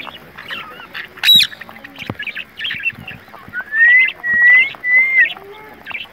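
Farmyard birds calling. A short sharp high call comes about a second in, then three loud drawn-out whistling calls near the middle, the first rising in pitch, over steady busy chirping.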